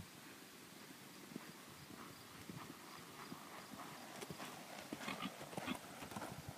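Hoofbeats of a sorrel Quarter Horse/Paint mare loping on a soft dirt arena. The beats are faint at first and grow louder about four seconds in as she comes near.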